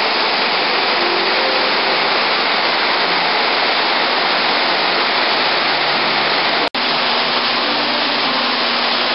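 Steady loud rushing noise, like falling water, broken once by a sudden brief dropout about two-thirds of the way through.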